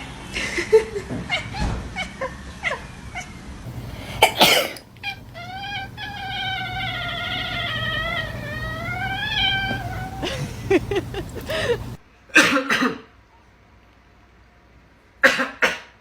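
A person coughs sharply and a domestic cat answers with one long, wavering meow of about five seconds. Two more short coughs come near the end.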